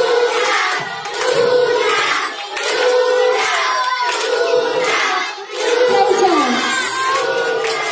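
A crowd of children's voices chanting and cheering in a repeating rhythm of about one shout a second, with clapping.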